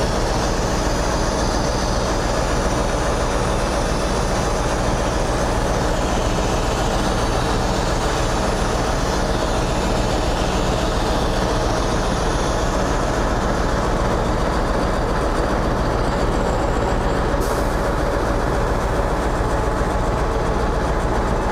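Scania 143M truck's V8 diesel engine running steadily at a constant speed, driving the loader crane's hydraulics while the load is being handled.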